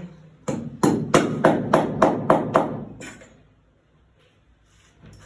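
Hammer strikes: a run of about eight quick, sharp blows at roughly three a second, stopping about three seconds in.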